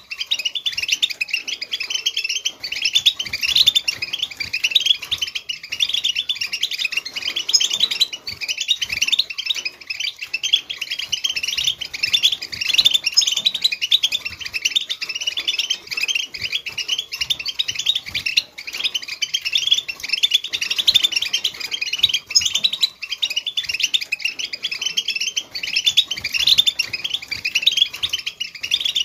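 European goldfinch song in the Widani style: an unbroken, rapid run of high twitters, trills and chirps.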